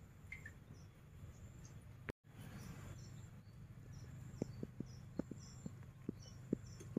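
Faint outdoor garden background: light high chirps from birds or insects about twice a second over a steady low hum. About two seconds in it cuts to silence for a moment, and a run of soft clicks comes in the second half.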